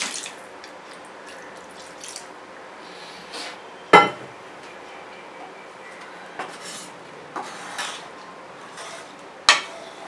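Kitchenware clatter around an iron kadai: a sharp clank with a short ring about four seconds in, a few light knocks, and another sharp clank shortly before the end as a wooden spatula starts stirring in the pan.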